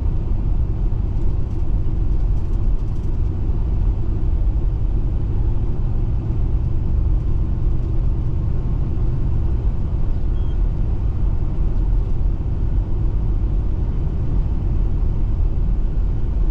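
Steady road and engine rumble of a car driving at a constant speed, heard from inside the cabin.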